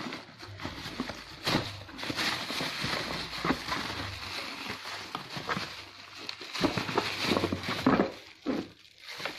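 Packaging being handled: a cardboard box and plastic wrapping rustling and crinkling, with irregular sharper crackles and knocks.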